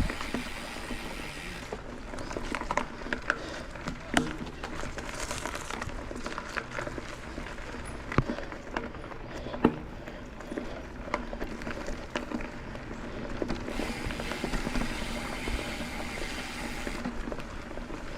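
Mountain bike riding over a dirt trail: steady rolling noise from the tyres with many scattered clicks and knocks from the bike as it goes over bumps.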